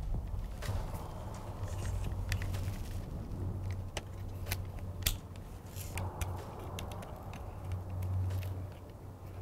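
Small clicks and rustles of wiring-harness connectors being handled and plugged back in, scattered sharp clicks with the loudest about five seconds in, over a steady low hum.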